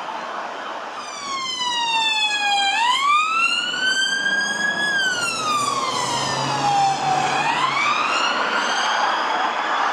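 Police car siren on the wail setting, a single tone rising and falling slowly in pitch, starting about a second in and getting louder as the Vauxhall Astra response car approaches and passes.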